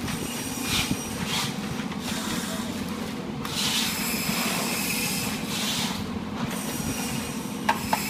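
Dried cinnamon sticks being handled and sorted by hand, giving short bursts of dry rustling and scraping with a couple of sharp clicks near the end, over a steady low machine hum.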